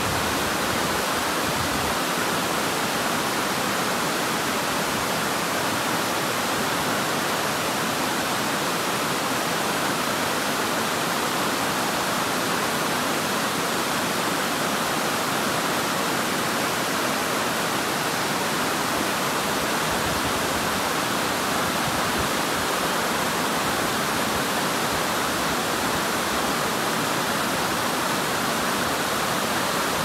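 Water pouring over a stepped stone weir into a pool: a steady, even rush of white water with no change in level.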